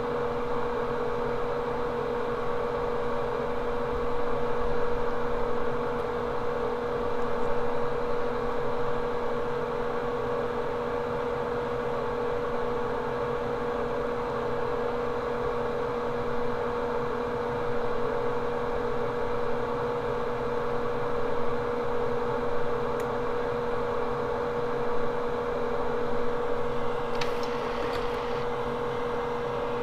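Steady whir of a small electric fan motor with a constant humming tone. A few faint ticks come near the end.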